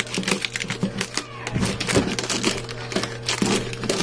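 Scissors slitting and scraping through clear plastic packing tape on a cardboard box, with many irregular crackles and crinkles of the tape.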